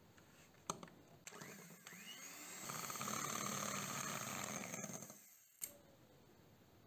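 Electric hand mixer whisking cake batter in a glass bowl: a click about a second in, then the motor spins up in a rising whine, runs steadily for about two seconds and winds down, followed by another sharp click.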